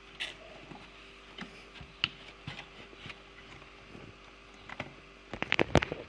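Scattered light clicks and knocks of plastic parts and wire connectors being handled at a dishwasher's circulation pump, with a quick run of sharp, louder clicks about five and a half seconds in.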